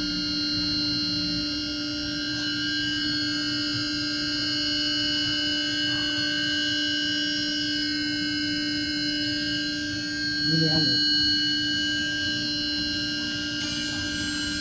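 CNC router spindle running at speed: a steady high-pitched whine made of several constant tones. A brief voice-like sound about ten seconds in.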